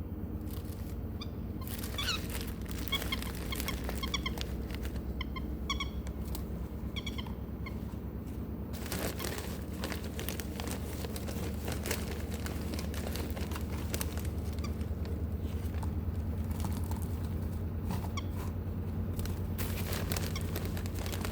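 Pet lovebird giving short, high chirps over a steady low hum. Scattered sharp clicks and taps follow, most of them from about halfway in.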